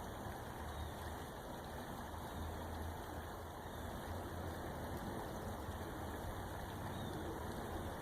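River water flowing, a steady continuous rush, with a low rumble underneath.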